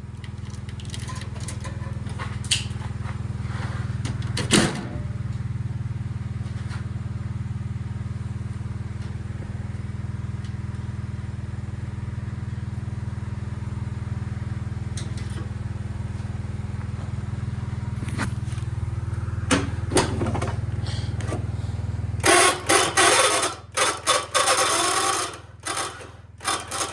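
1976 John Deere 300 garden tractor engine running steadily just after a hard start, then cutting out suddenly about 22 seconds in. A burst of loud clattering and scraping follows.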